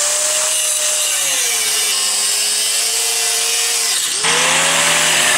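Electric angle grinder with a thin cutoff wheel cutting through a rusted control-arm bolt. The motor's whine sags in pitch as the wheel bites into the metal, and the grinding grows louder and harsher about four seconds in.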